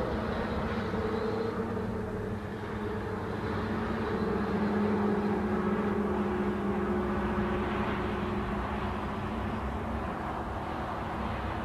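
Steady engine hum from a motor vehicle, a low drone with a faint sliding tone.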